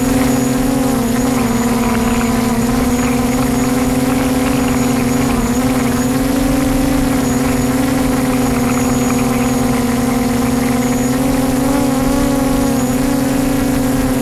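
DJI Mavic drone's propellers running in a loud, steady hum whose pitch wavers slightly as the motors adjust.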